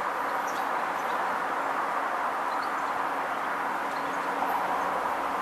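Class 66 diesel-electric locomotive's two-stroke V12 engine working under power as a convoy of locomotives approaches: a steady running noise with a low engine hum that grows clearer about halfway through. A few faint bird chirps sound above it.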